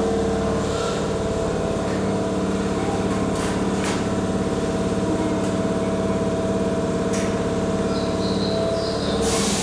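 Stationary Keihan 2600-series electric train's underfloor equipment humming steadily with several held tones. About nine seconds in, a sudden loud hiss of air starts.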